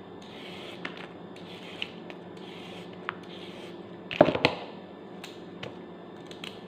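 Carrot being peeled with a hand vegetable peeler: a run of short scraping strokes, repeating a little under once a second, with small clicks and one louder knock about four seconds in.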